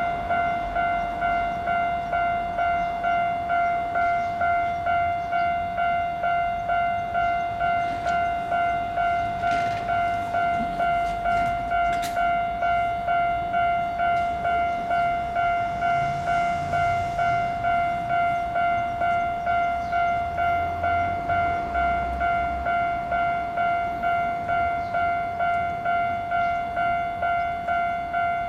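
Japanese railway level crossing's electronic warning bell ringing, a steady repeating ding at about three strikes every two seconds, sounding while the barriers are down for an approaching train.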